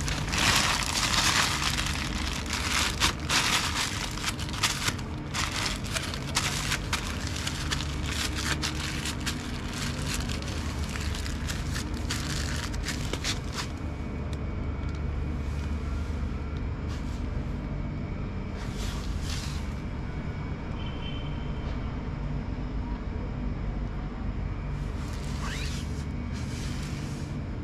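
Top-loading washing machine running under test: a steady low motor hum that swells and fades every few seconds, with dense crackling and clicking over the first half that stops about halfway through.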